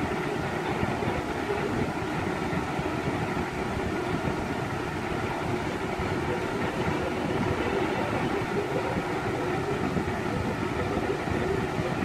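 Lasko 20-inch box fan (model B20200) running steadily: a constant rush of moving air with a faint hum from the motor and blades.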